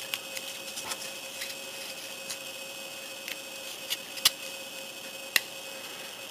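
Small plastic parts of a Bandai N scale streetcar model kit clicking and tapping as the end pieces are worked onto the body: scattered light clicks, with two sharper ones about four and five seconds in, over a faint steady hum.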